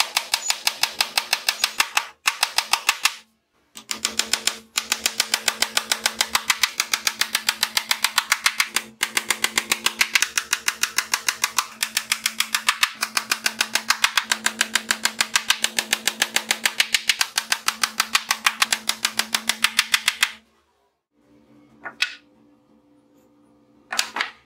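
A hammer tapping a small nail into plywood with rapid, even blows in long runs, stopping about 20 seconds in. A couple of light knocks follow near the end.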